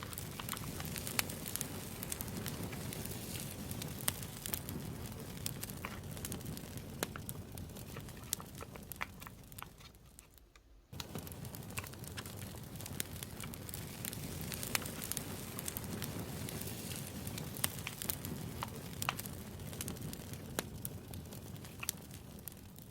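Campfire crackling: a steady hiss of burning wood dotted with many sharp pops. It fades away about ten seconds in and comes straight back a second later, then fades again near the end.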